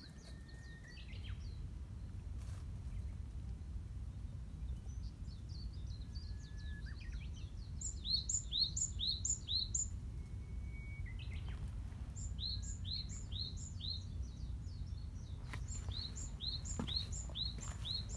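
A small songbird singing in woodland: three phrases of about five quick, high, down-slurred notes each, the first about eight seconds in and then roughly every four seconds, with a few thin single whistles between, over a steady low rumble.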